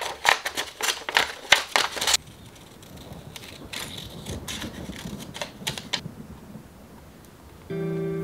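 Scissors cutting a sheet of paper in quick, rapid snips for about two seconds, then fewer, fainter snips as a small piece is trimmed. Background music comes in near the end.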